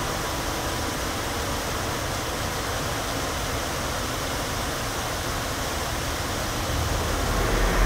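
Small waterfall splashing over rocks into a shallow stream, a steady rush of water. A low rumble swells in near the end.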